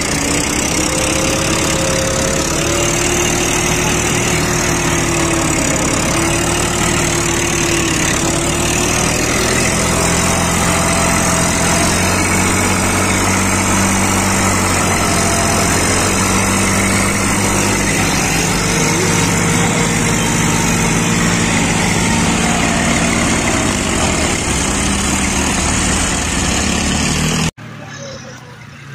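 Tractor diesel engine running steadily under load while it drags a soil leveller through soft soil, heard close from the driver's seat. Its pitch wavers slightly with the load, and the sound drops off abruptly near the end.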